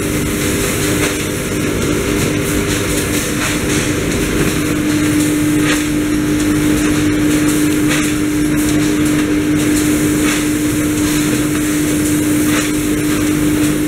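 Rice-packing conveyor line and baling machine running: a steady mechanical hum with a constant low tone that grows stronger about four seconds in. Faint knocks from the machinery come every second or two.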